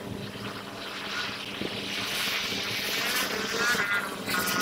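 Jet airliner passing overhead on approach: a rushing engine noise that swells over a few seconds, with a high engine whine coming in during the second half.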